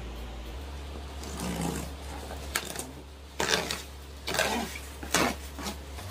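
A cutter slitting open black plastic bubble wrap around a cardboard furniture box, the wrap crinkling and rustling in a series of short scratchy strokes.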